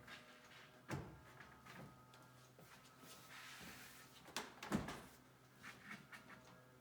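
Wooden cabinet panels being handled and fitted: a few sharp knocks, the loudest about two thirds of the way in, a brief scrape just before them, and some light taps near the end.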